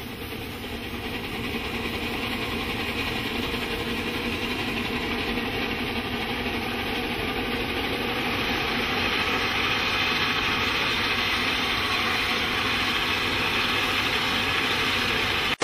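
Steam engine running steadily, fading in over the first couple of seconds.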